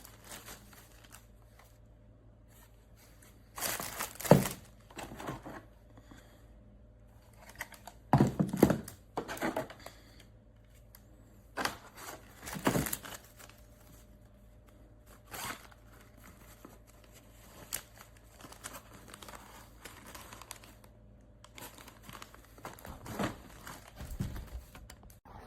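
Intermittent crinkling and rustling handling noises in a small room, a handful of short bursts a few seconds apart.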